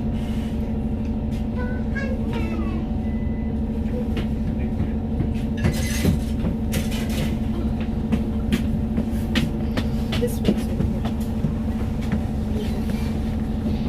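Volvo B5TL double-decker bus running: a steady low rumble with a constant humming tone, with scattered rattles and knocks throughout, busier from about halfway.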